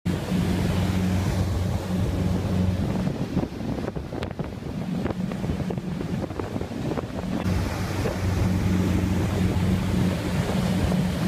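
Wind buffeting the microphone over the sea, with a boat engine's low, steady drone underneath that drops out twice in the middle.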